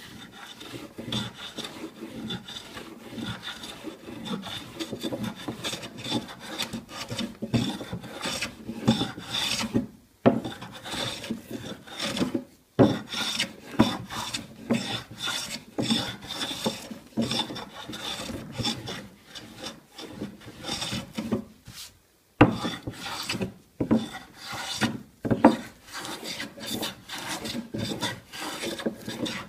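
Japanese hand plane (kanna) shaving a wooden tabletop in quick repeated strokes, a dry scraping hiss with each pass and a couple of short pauses. This is the final smoothing pass on the tabletop.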